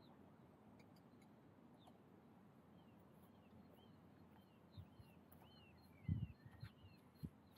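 Footsteps on grass close to the microphone: a few low thumps in the second half, the loudest about six seconds in. Behind them a bird gives a series of short, high chirps.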